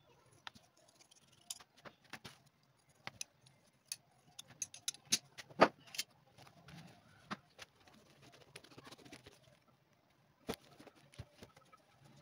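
Scattered clicks and light taps of hand work at a bench: scissors snipping the edge of an insole and small objects being handled and set down. One sharper knock comes about halfway through.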